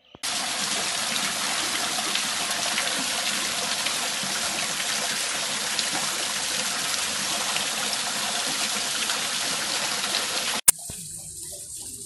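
Water running in thin sheets and streams down a stacked-stone water-wall fountain and splashing into its basin, a steady splashing hiss. About ten and a half seconds in it stops abruptly with a click and gives way to quieter, hissier water.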